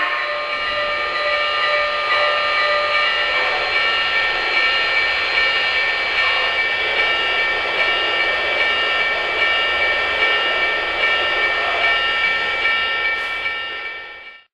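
O-scale model Western Pacific GS-2 4-8-4 steam locomotive standing with its sound system and smoke unit running: a steady hiss with several high whining tones and a faint tone pulsing about every half second. The sound fades out near the end.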